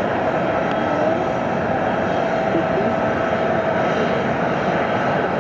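Jet aircraft engine noise on an airport apron: a steady, continuous rush with a thin steady whine over it that fades out a little past the middle.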